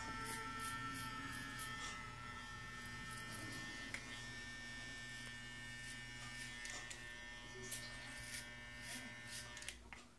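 Andis Master magnetic-motor hair clipper running with a steady buzz while cutting hair close at the side and back of the head for a fade.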